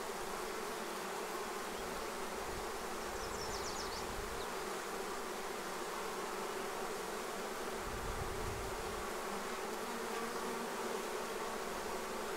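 Swarm of honeybees buzzing steadily: the even hum of many bees at once.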